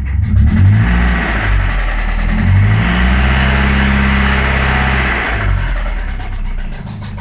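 Toyota Celica engine revved twice from idle: a quick blip, then a longer rev held for a few seconds before it drops back to idle. At idle there is a steady rhythmic knock, which the owner takes for rod knock.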